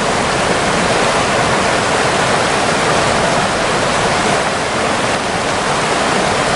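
Fast-flowing river running over rapids: a steady, even rush of water.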